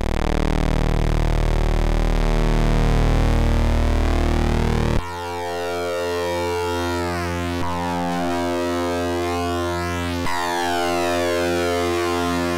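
Eurorack modular synthesizer playing a buzzy, harmonically dense tone: Rossum Trident oscillators wave-spliced through a Future Sound Systems Recombination Engine, the auxiliary oscillators pulse-modulated. About five seconds in the timbre switches abruptly, and from then on falling sweeps repeat about every two and a half seconds.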